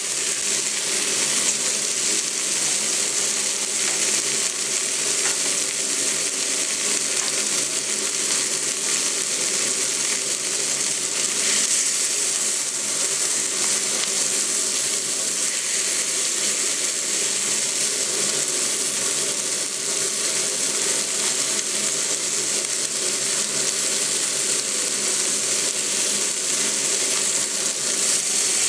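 Meat sizzling steadily as it fries on a hot cast-iron griddle plate: chicken pieces, beef steaks and sausages.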